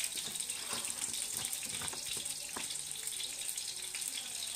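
Steady sizzling hiss of food cooking in a pan on the hob, with a few faint light clicks of a fork working butter and flour together on a china plate.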